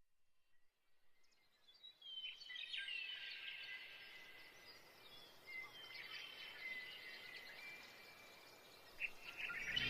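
Faint birdsong: many short chirps and twitters fading in about two seconds in and carrying on over a soft hiss.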